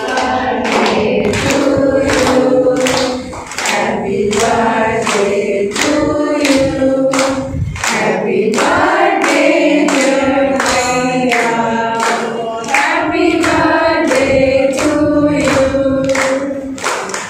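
A group of people singing together, with hand-clapping keeping time at about two claps a second.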